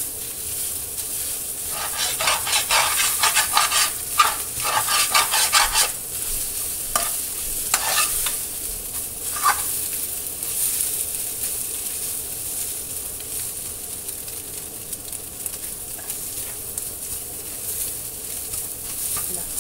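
A thoran of chopped greens and scrambled egg sizzling steadily in a metal frying pan, while a spatula stirs and scrapes it. About two seconds in come four seconds of quick scraping strokes against the pan, then a few single strokes.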